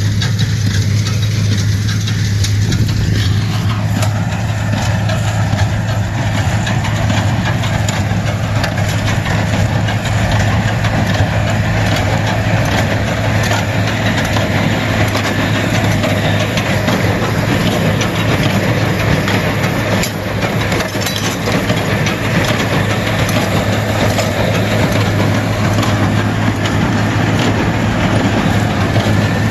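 Tractor engine running steadily with a constant low hum while pulling a round baler through straw, with the baler's machinery noise mixed in.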